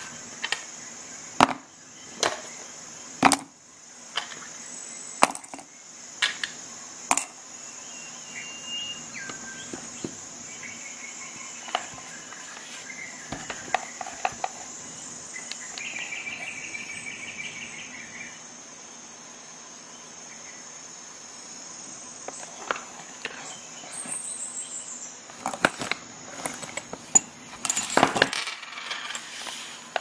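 Small objects being handled on a desk: a nylon multitool belt pouch and small metal tool pieces give single sharp clicks and knocks a few seconds apart, then a short rustling scrape near the end, over a steady high-pitched hiss.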